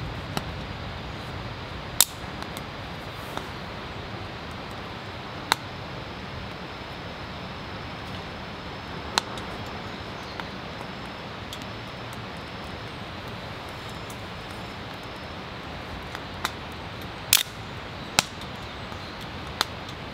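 A twig fire burning in a small Bushbuddy wood-gas stove, with sharp snaps and pops of small wood every few seconds over a steady background hiss.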